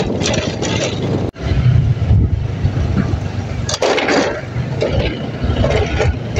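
Motorcycle running along a rough gravel road, with a gusty rumble of wind on the microphone. The sound breaks off for an instant about a second in.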